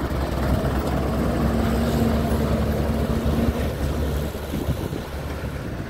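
Diesel engine of a transit mixer truck running in a steady low drone, with a held hum that drops out about three and a half seconds in and the sound easing slightly near the end.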